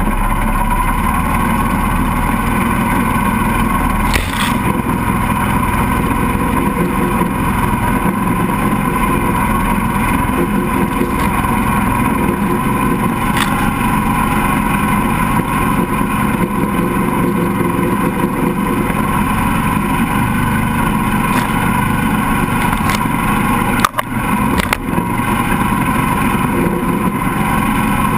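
Mini swamp buggy's engine running steadily under way as the buggy drives through shallow swamp water, the tyres churning through the water. About three-quarters of the way through, the sound briefly drops out twice.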